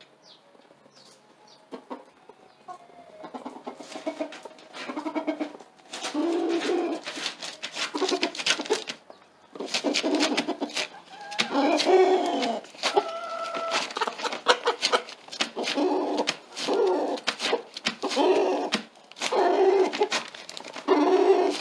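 Rooster giving a long run of low, repeated calls from a nest spot, each about half a second to a second long, starting faintly and growing louder after a few seconds. It is calling a hen to come and lay there.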